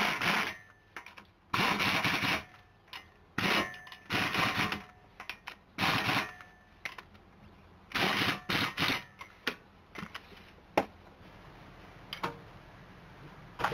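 Impact wrench driving wheel lug nuts in short bursts, about six over the first nine seconds, then a few single sharp clicks.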